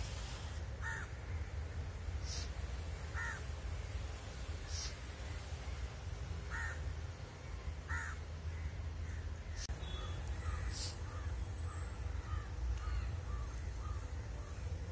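Crows cawing: single short calls every couple of seconds, then a quicker run of fainter calls near the end, over a steady low rumble.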